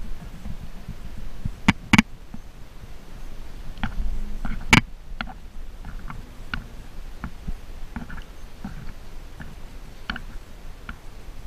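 Handling noise from a camera held close to the body: a low, uneven rumble with scattered sharp clicks and taps, the loudest twice about two seconds in and once near the five-second mark.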